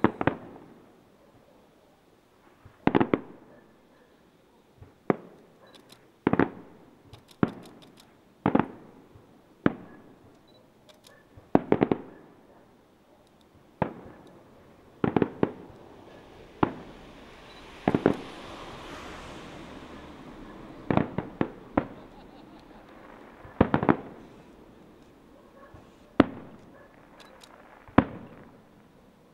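Aerial fireworks shells bursting in a string of sharp bangs, roughly one every one to two seconds, each trailed by a short echo. A few seconds of hissing noise come in around the middle.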